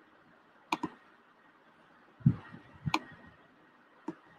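Computer pointer clicks: a quick double click about three-quarters of a second in, another just before three seconds and a single click near the end. A dull, deeper thump just after two seconds is the loudest sound.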